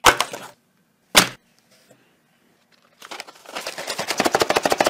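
A paperboard Chicken McNuggets box being handled. There is one sharp knock about a second in, then from about three seconds a quick, dense run of crackling that grows louder.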